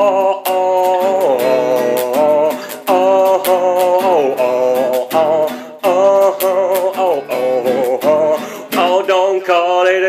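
Music: an acoustic guitar strummed with sharp percussive hits, with a wavering, gliding melodic line held over it.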